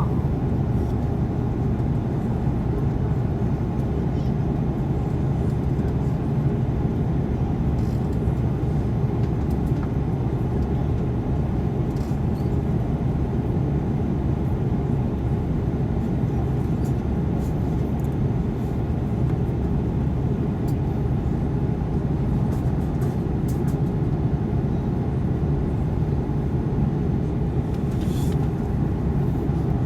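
Steady cabin noise of an Airbus A330-200 in flight, heard from a window seat: an even low rumble of engines and airflow that doesn't change, with a few faint ticks.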